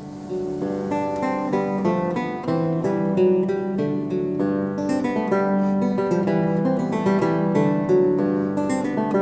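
Background music: a plucked acoustic guitar playing a melody of short notes.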